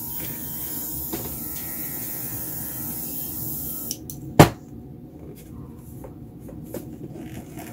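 Airbrush blowing a steady hiss of air over wet acrylic paint; the hiss cuts off suddenly about four seconds in, followed shortly by a single sharp knock.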